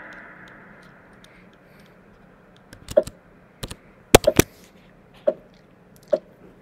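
A gong-like tone from the quiz game's music fading away, then a scattered series of sharp clicks and taps, the loudest about four seconds in.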